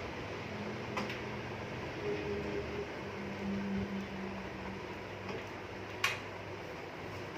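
Two sharp clicks of a screwdriver and screws against a metal computer case, one about a second in and one near the end, over a steady low hum that swells for a few seconds.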